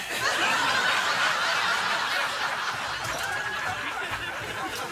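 Theatre audience laughing, loudest in the first couple of seconds and then slowly dying down.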